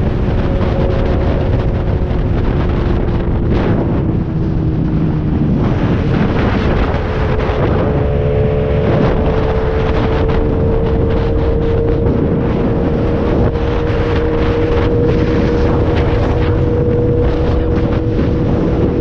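Sport motorcycle engine running at highway cruising speed, its note holding steady and creeping slightly higher, under heavy wind rush on the rider's microphone.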